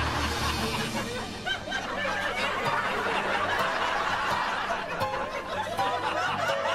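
Many voices laughing and chuckling together, a canned laugh track, over light background music.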